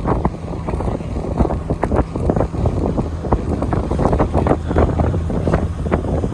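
Wind buffeting the microphone on the open deck of a moving cruise boat: a steady low rumble with uneven gusts throughout.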